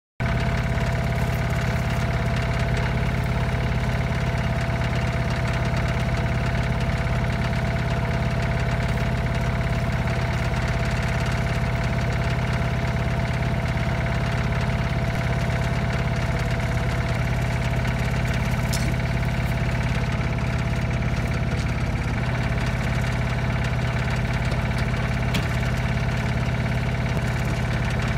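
A small engine idling steadily, with an even hum and no change in speed.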